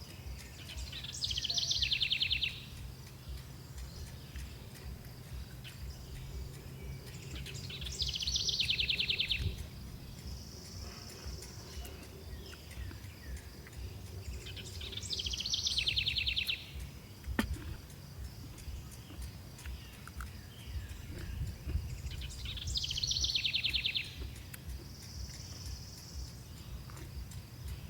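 A high, rapidly pulsed trill from an animal, each starting with a quick falling sweep, repeated four times about seven seconds apart. Between the trills, a short steady high tone sounds twice, over a steady low background hum.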